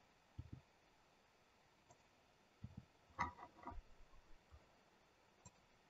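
Near silence with faint, scattered clicks from a computer mouse and keyboard, a short cluster of them about three seconds in.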